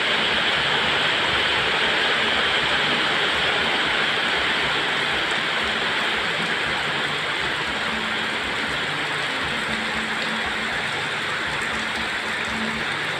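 Heavy storm rain pouring down, a steady hiss.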